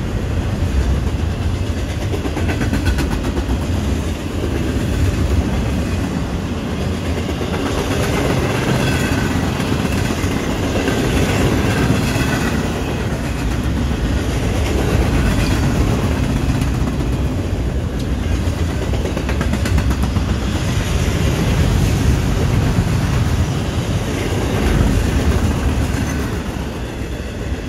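Freight train of double-stack container well cars rolling past: a steady rumble and clatter of steel wheels on the rails, with faint high wheel squeals now and then.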